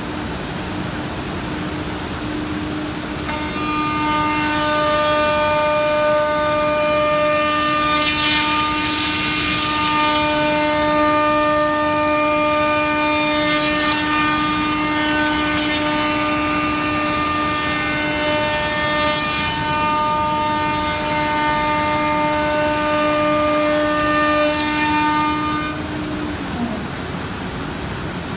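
Single-head CNC wood router's spindle running with a steady whine over the noise of cutting a wood panel, the whine joined by higher overtones that come and go with the cut. Near the end the spindle's pitch falls as it winds down.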